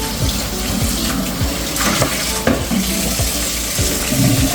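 Water running and splashing in a sink as raw chicken wings are rinsed and stirred by hand, with a few sharp knocks against the bowl.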